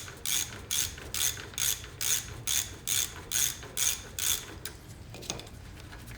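Socket ratchet on a 14 mm bolt clicking in quick back-and-forth strokes, about two to three bursts a second, as the bolt holding the master cylinder is backed out; the clicking stops about four and a half seconds in.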